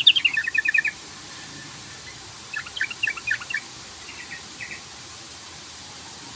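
Yellow-vented bulbul (trucukan) singing its bubbling, chattering call: a quick run of notes at the start, a second burst about two and a half seconds in, and a few short notes near the middle, then quiet background.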